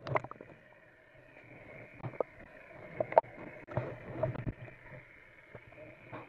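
Underwater sound picked up by an action camera in its waterproof housing, worn by a scuba diver: a steady muffled hiss with scattered sharp knocks and clicks, and a cluster of low bubbling rumbles from exhaled air near the middle.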